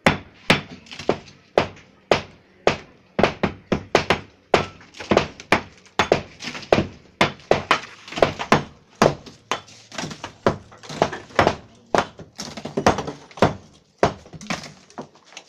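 Demolition of a plastered brick wall by hand: repeated blows knock bricks and mortar loose, about two or three strikes a second and unevenly spaced, with broken brick chunks clattering down onto rubble.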